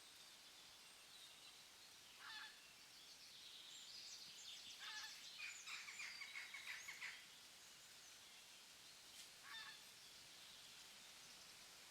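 Forest birds calling faintly over a steady background hiss: a short call about two seconds in, a run of quick repeated notes through the middle, and another short call near the end.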